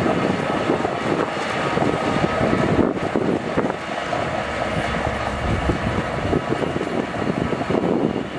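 Crawler bulldozer working: its diesel engine running under load with the steady clatter of steel tracks.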